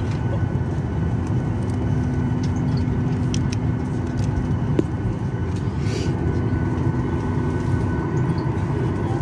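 Steady low rumble of a moving vehicle, with a faint steady hum over it and a few small clicks.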